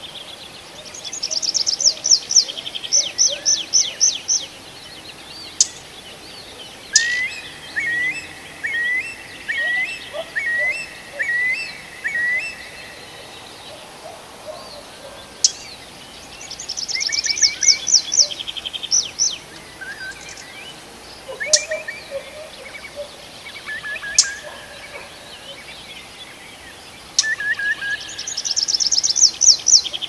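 Songbird singing in bouts every few seconds: quick, high trilled runs, and one phrase of about seven repeated lower, up-slurred whistled notes, over a faint background.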